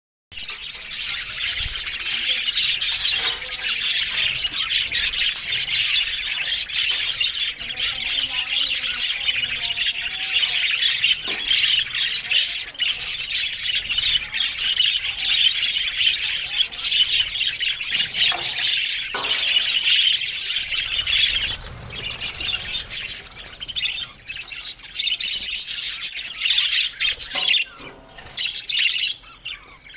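A flock of budgerigars chattering, chirping and squawking all at once in a continuous, busy stream of calls that thins out near the end.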